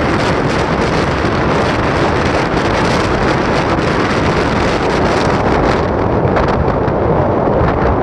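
Strong coastal wind buffeting a phone's microphone: loud, steady, rumbling wind noise with no pauses, a little less hissy after about six seconds.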